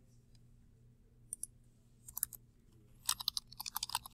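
Typing on a computer keyboard: a few scattered key clicks, then a quick run of keystrokes from about three seconds in.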